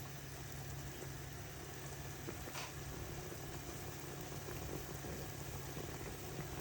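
Pot of bitter leaf soup (ofe onugbu), thickened with cocoyam, bubbling faintly on the heat as it comes to the boil, over a steady low hum.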